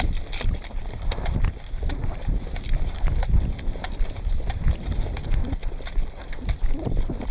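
Running footsteps thudding on the ground close to the microphone, with short clicks and rattles mixed in.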